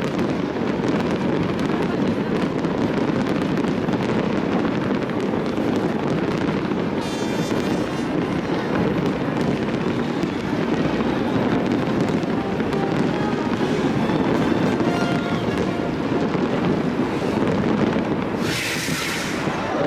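Fireworks display: a continuous dense barrage of popping and crackling bursts. A whistling shell sounds about seven seconds in, and a bright hissing crackle comes near the end.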